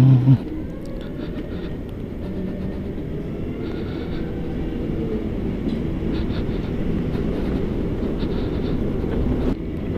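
Low rumbling wind and road noise from riding a BMW CE 04 electric scooter, slowly growing louder as it gathers speed.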